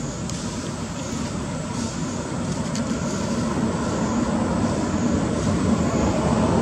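A steady engine rumble from passing motor traffic, growing gradually louder.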